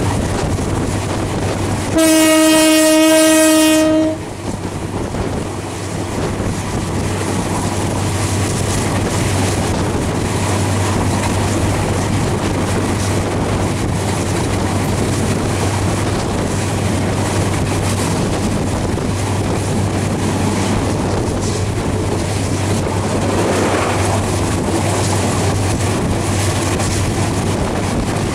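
Bangladesh Railway Lalmoni Express running at speed, heard from aboard the train: a steady rumble of wheels on rails with clickety-clack and a constant low drone. About two seconds in, the diesel locomotive's horn gives one loud, single-note blast lasting about two seconds.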